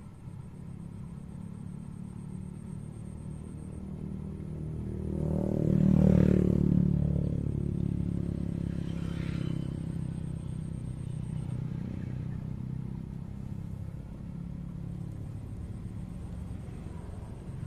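Low, steady rumble of road traffic, with one motor vehicle passing close by: it grows louder to a peak about six seconds in, then slowly fades.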